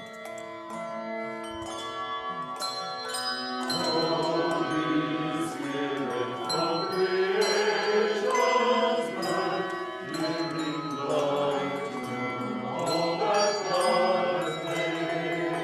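Handbells ringing held chords, joined about four seconds in by a mixed choir singing over them.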